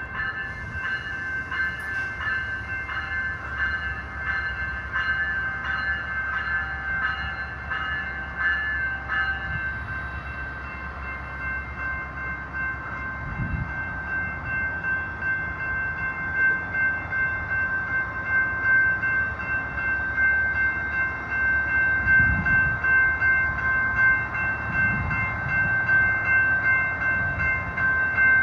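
Siemens SC44 Charger diesel locomotive of an Amtrak train standing at a station stop, its engine running with a low rumble while a bell-like ringing goes on at a steady pitch, struck repeatedly at first and then held.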